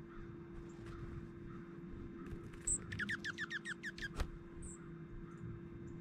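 A songbird gives a short trill of about eight quick down-slurred notes about three seconds in, with a few high, thin call notes before and after it. A single sharp click comes just after the trill.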